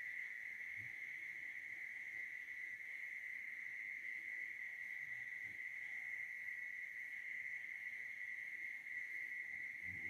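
Steady high-pitched insect drone, continuous and unchanging, with a few faint low sounds, the last near the end.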